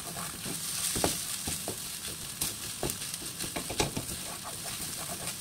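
Fried rice with salted octopus sizzling in a wok, stirred with a wooden spatula: a steady sizzle with irregular scrapes and knocks of the spatula against the pan.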